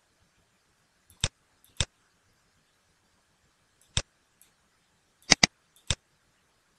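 Computer mouse button clicking: six sharp clicks spread through a near-silent stretch, two of them in quick succession about five seconds in.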